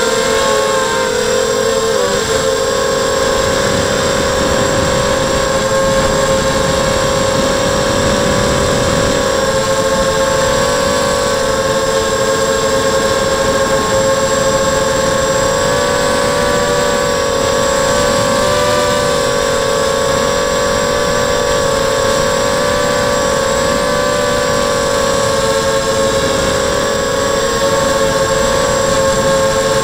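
ZMR quadcopter's brushless motors and propellers whining, heard through its onboard camera, the pitch wavering up and down as the throttle changes in acrobatic flight.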